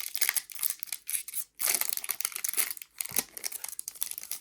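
Crinkling and rustling of a trading-card pack's foil wrapper and cards being handled, in three bursts with short pauses between them.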